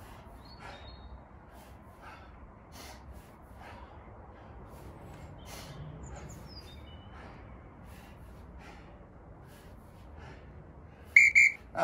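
A man breathing hard in short, regular puffs while swinging a kettlebell, with a few bird chirps. Near the end an interval timer gives two short, loud beeps, marking the end of the 30-second work period.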